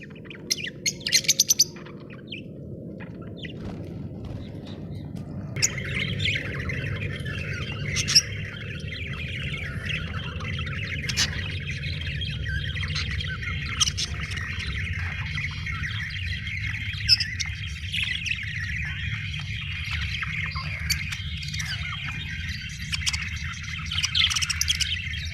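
A flock of budgerigars chirping and chattering. A few sharp, separate chirps come at first; from about five seconds in they give way to a dense, continuous warbling chatter with occasional louder squawks.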